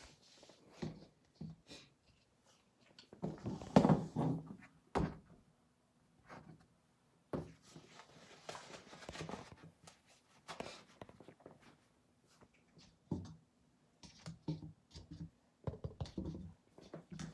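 Knocks and thumps of a plastic cup of acrylic paint and a canvas being handled on a plastic-covered table, loudest about four seconds in. Near the end come quick light taps of a finger on the base of the upturned cup.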